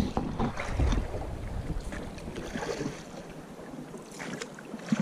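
Wooden oars of a small rowboat dipping and splashing through lake water on each stroke, with wind buffeting the microphone, heaviest in the first couple of seconds.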